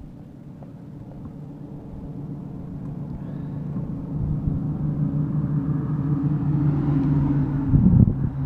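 A motor vehicle's engine droning low and growing steadily louder as it approaches.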